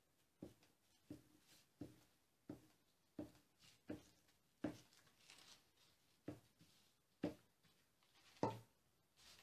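Glue stick rubbed in short strokes over a paper template lying on a wooden board, about one stroke every two-thirds of a second, with a few louder strokes in the second half.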